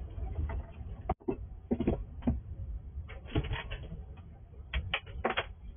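Squirrel scrabbling on plastic: irregular clusters of sharp clicks and scrapes from its claws on the nest box and tube, over a steady low background hum.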